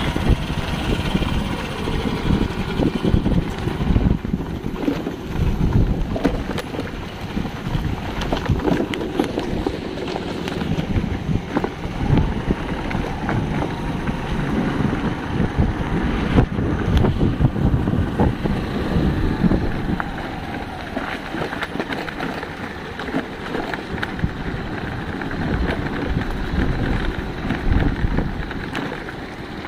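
Wind buffeting the microphone: an uneven low rumble that rises and falls without a break.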